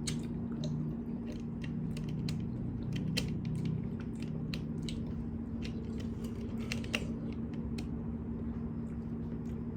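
Close-up eating sounds: irregular crisp clicks and crunches of biting and chewing food, over a steady low hum.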